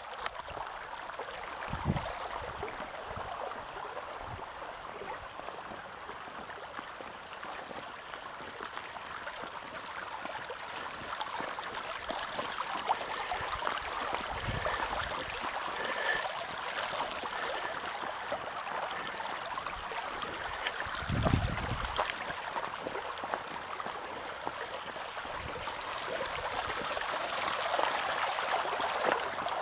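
Water running along a narrow stone-lined flume, a steady trickling rush. A few low thumps come through it, one about two seconds in and the strongest about two-thirds of the way through.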